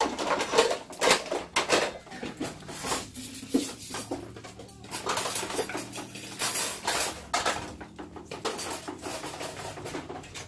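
Wooden spoon stirring and scraping food in a frying pan on a gas stove: an irregular clatter of knocks and scrapes against the pan.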